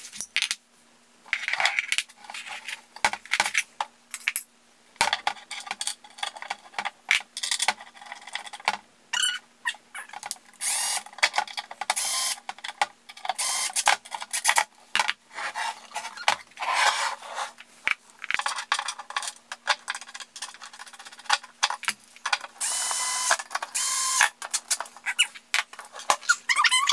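Cordless drill run in short, stop-start bursts on screws in a bamboo pegboard panel, with sharp clicks of metal and wood between the bursts; the longest run of the drill comes near the end.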